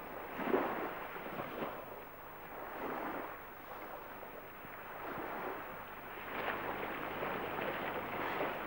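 Faint rushing noise with no tone, swelling and fading every second or two.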